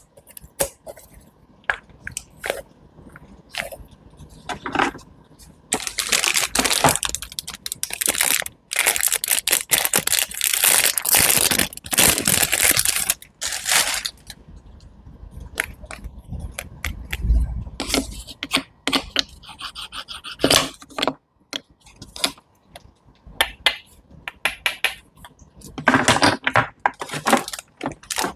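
Close-miked scraping and crunching, with many short clicks and taps and several longer rough scraping stretches, the longest lasting a few seconds, typical of cutting or mixing food.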